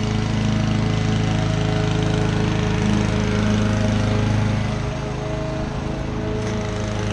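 Honda 216D self-propelled lawn mower's four-stroke engine running steadily under mowing load. A little before five seconds in, its sound drops slightly and the low engine tone shifts.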